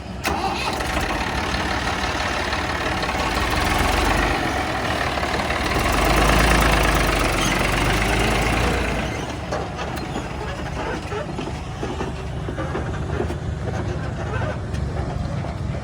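Heavy diesel machinery engine running, growing louder about four seconds in, loudest from about six to nine seconds, then easing back to a steadier level.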